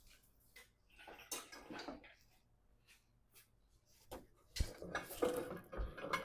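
Clunks and rattles of an engine hanging on a hoist being worked into a truck's engine bay, with the truck's original wiring knocking against the metal. A rattle comes about a second in, and a louder clatter with two heavy thumps near the end.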